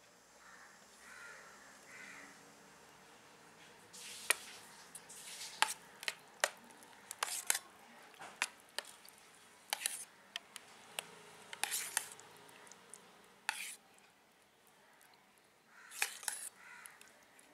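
Metal spoon stirring raita (curd with chopped cucumber and tomato) in a small stainless steel bowl, clinking irregularly against the bowl. The clinks start about four seconds in and pause briefly before a last few near the end.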